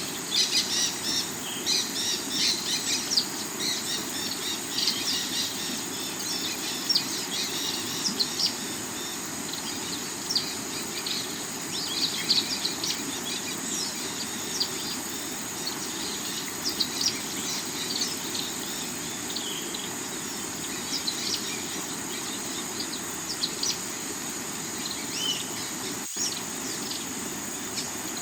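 Steady rushing of a rocky river under many small songbirds chirping, the chirps busiest in the first half and thinning out later. A constant high-pitched whine runs throughout.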